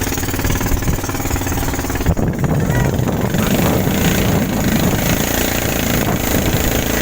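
Engine of a small river boat running steadily. About two seconds in, its even hum gives way to a rougher, louder rushing noise.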